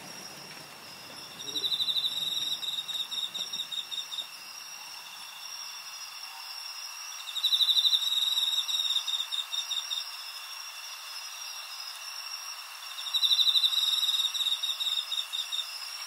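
Crickets singing. A louder cricket gives three songs about six seconds apart, each a rapid trill that breaks up into separate chirps over about two seconds, over a steady high trilling from other insects.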